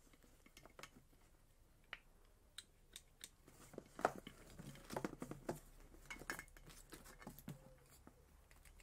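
Faint clicks and rustles from handling a welder's stick electrode holder and its cable, busier from about four seconds in.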